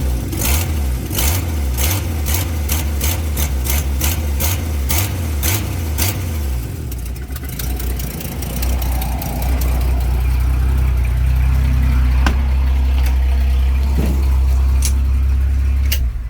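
Dodge Slant Six inline-six idling with no muffler, its exhaust ticking sharply a few times a second from a leak at the exhaust manifold gasket. The ticking fades after about six seconds while the engine keeps running, and the engine is switched off at the very end.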